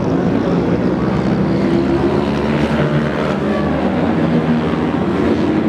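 Steady drone of racing motorcycle engines running at a distance, several engine notes overlapping over a constant noisy rumble.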